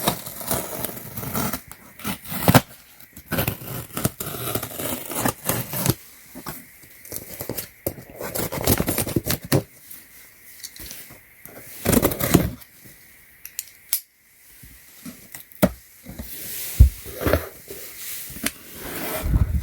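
Packaging being opened and handled by hand: irregular tearing, crinkling and scraping, with scattered sharp clicks and knocks.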